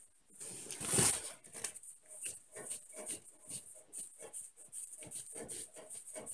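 A 1 lb propane cylinder being twisted by hand onto a camp stove's brass regulator fitting. There is a brief rush of noise about a second in, then a run of short squeaks and creaks from the threads and seal, about three a second.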